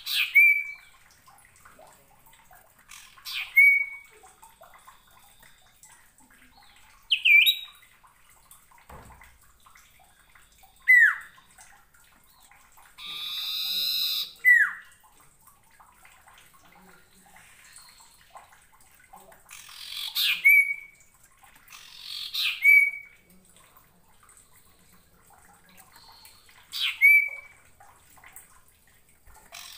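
Common iora (sirtu/cipoh) calling: sharp down-slurred whistled notes, each ending in a brief held note, repeated every few seconds. About a third of the way through comes one harsh, rasping call lasting just over a second.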